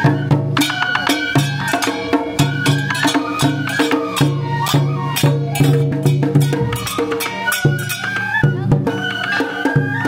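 Japanese festival procession music: several bamboo transverse flutes playing a melody over drum beats and the clash of small hand cymbals.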